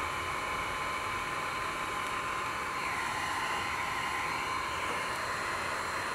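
Wagner heat gun blowing steadily, its fan and hot-air rush held on a vinyl wrap to soften the adhesive so the wrap can be peeled off the plastic.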